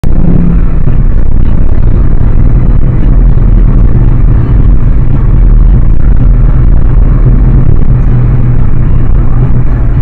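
Interior noise of a moving car picked up by a dashcam microphone: a loud, steady low rumble of engine and tyres on the road.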